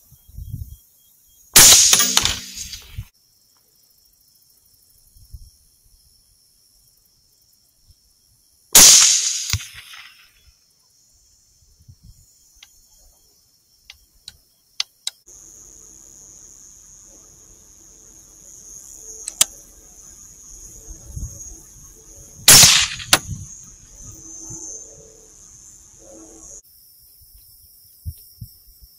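Three rifle shots, each a sharp crack with a short trailing tail. The second comes about seven seconds after the first, and the third over a dozen seconds after that.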